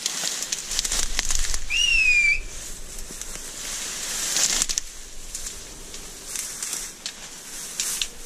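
Dry reeds and grass rustling and crackling as someone pushes through them on foot. One short whistle rises in pitch about two seconds in.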